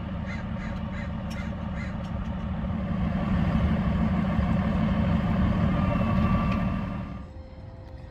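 Aerial ladder fire truck's diesel engine running to power the raised ladder during aerial testing, getting louder about three seconds in and dropping off sharply near the end.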